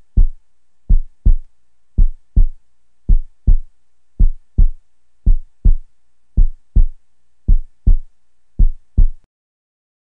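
A slow heartbeat: deep paired lub-dub thumps about once a second, stopping shortly before the end.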